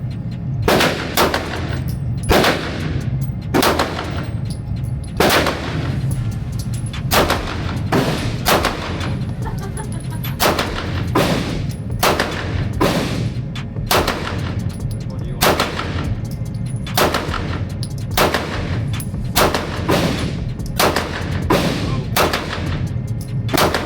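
Handgun fire on an indoor range: a long, uneven string of sharp pistol shots, about one a second, each with a short echo.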